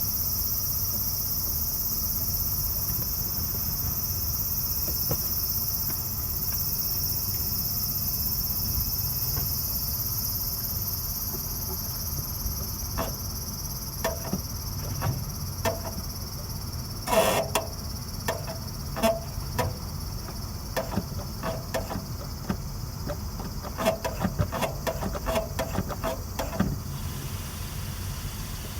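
Subaru Impreza WRX STI (GDB) clutch release mechanism squeaking in short, repeated chirps as the clutch is worked, starting about halfway through and coming faster near the end. The squeak comes from dry metal contact where the release fork meets the release cylinder and around the fork's pivot shaft, points that lack grease. Insects chirp steadily in the background.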